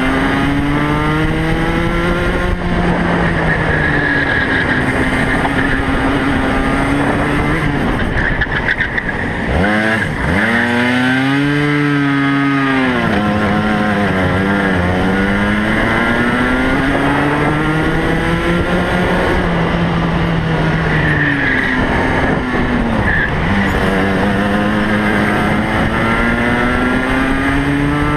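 Racing kart's two-stroke engine heard from on board at race pace, its pitch climbing steadily along the straights and falling sharply several times as the driver lifts off for corners, most steeply about ten seconds in, then climbing again.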